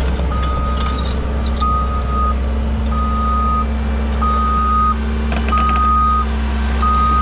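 Back-up alarm on a piece of heavy equipment beeping in a steady rhythm, about one long beep every second and a third, over the steady running of a diesel engine.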